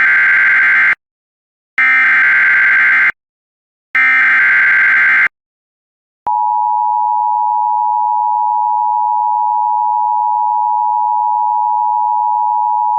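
Emergency Alert System tones: three SAME header data bursts, each about a second long, then the steady two-tone EAS attention signal starting about six seconds in.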